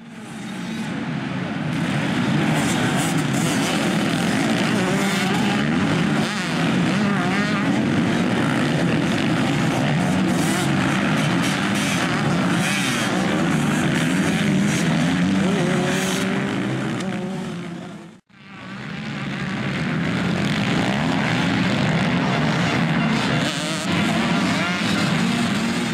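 A pack of motocross bikes racing on a dirt track, several engines revving and running together with their pitch rising and falling as riders accelerate and shift. The sound drops out for a moment about eighteen seconds in, then the engines return.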